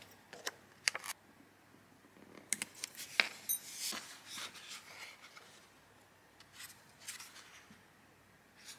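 Hands handling a small sketchbook with a grey board cover: scattered light clicks and short paper rustles as it is lifted off the table and opened to a spread.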